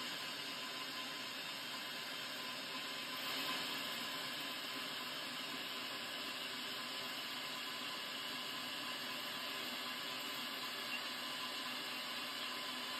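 Sears Craftsman electric drill running steadily, turning a piloted boring tool dry through a valve guide in a cast iron cylinder head to open it 0.030 in oversize for a bronze guide liner.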